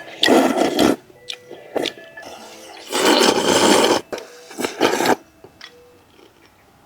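Fern root noodles being slurped: three long, noisy slurps, the longest about a second, over soft background music.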